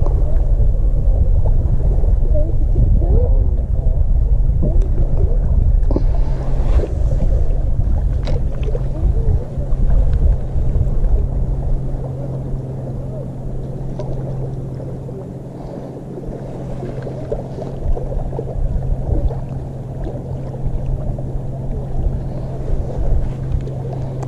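Wind buffeting the camera microphone as a heavy low rumble, easing about halfway through, with a steady low hum underneath.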